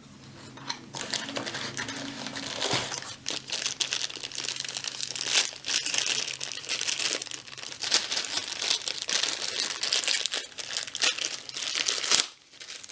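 Packaging crinkling and rustling as items are unwrapped and taken out of a product box, with dense crackles throughout, pausing briefly near the end.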